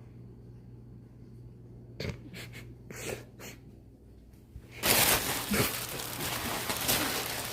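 A bag rustling and crinkling as a cat plays with it: a few scattered crackles, then loud, continuous crinkling from about five seconds in.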